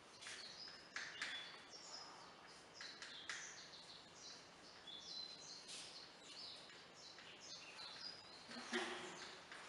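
Chalk writing on a chalkboard: faint, irregular scratches and taps as letters are stroked out, one after another.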